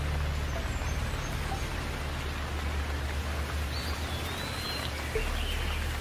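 Heavy rain falling steadily, with scattered drops plinking nearby. From past the middle a bird chirps a few short calls over the rain.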